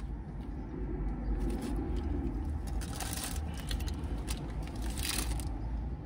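Food being crunched and chewed close to the microphone, with two louder crisp crunches about three and five seconds in, over a steady low rumble.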